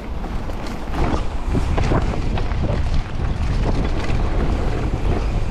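Wind buffeting the microphone as a Vitus Sommet 297 enduro mountain bike rides fast down a dirt jump line, with tyre noise and short knocks and rattles from the bike over the ground.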